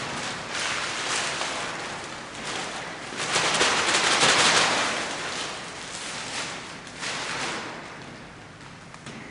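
Graphite being rubbed and dabbed onto a paper-covered wall: rough rustling scrubs against the paper in irregular bursts, the longest and loudest around the middle.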